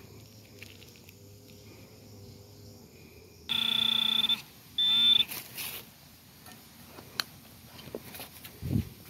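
Handheld metal-detecting pinpointer sounding its alert over a buried metal target. It gives a loud, steady buzzing beep of about a second, then a shorter one that wavers in pitch. A soft thump comes near the end.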